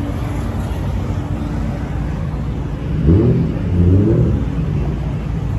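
A car engine running steadily, then revved twice, with the pitch rising sharply about three and four seconds in.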